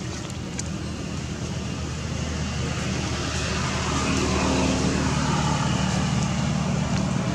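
An engine running nearby: a steady low hum that grows louder over the first few seconds and then holds.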